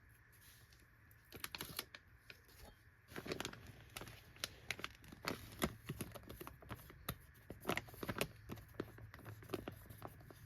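Paper vacuum bag and the backing paper of its adhesive dust cover crinkling and crackling in the hands as the backing is peeled off, an irregular run of small clicks and rustles starting about a second in.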